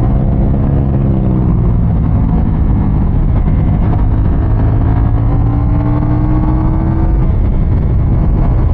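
CFMOTO 450 CLC's parallel-twin engine pulling under hard acceleration, its note climbing in pitch, dropping at an upshift about seven seconds in, then climbing again.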